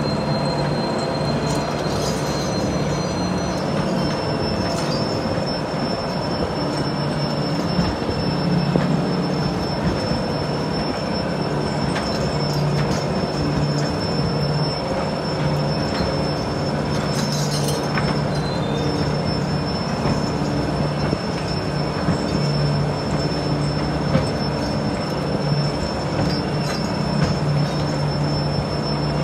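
Bucket wheel excavator running steadily as it digs: a constant low machine hum under a high, steady squeal of steel, with scattered clanks from the wheel and conveyors.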